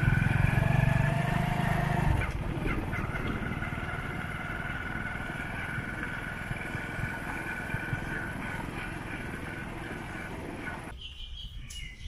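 Motorcycle engine running under way with a rapid low throb, loud for about the first two seconds, then easing to a quieter rough running sound with a steady high whine. It cuts off about eleven seconds in.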